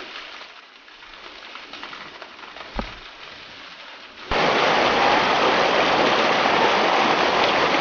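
Rushing river water, loud and steady, coming in abruptly about four seconds in. Before it there is a fainter, even hiss with a single knock near the three-second mark.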